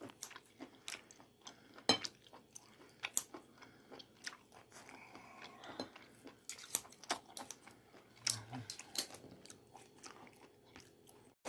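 Kitchen scissors snipping through pieces of stir-fried octopus on a plate while tongs hold them, making a string of soft, irregular clicks and snips.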